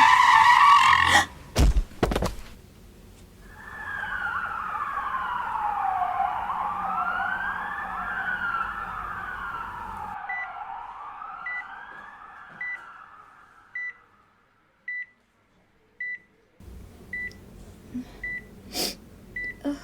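Tyres screeching, then a heavy crash of impact about two seconds in. An ambulance siren wails up and down and fades away, and from about halfway on a hospital heart monitor beeps steadily, about once a second.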